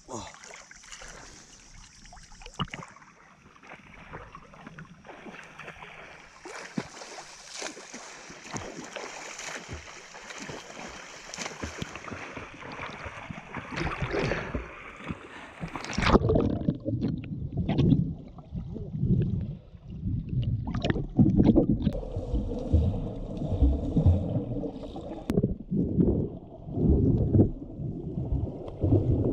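Water splashing and sloshing at the surface from swimmers doing front crawl. About halfway through, the sound abruptly turns muffled and deep, with bubbling and thumping strokes, as the recording goes under water.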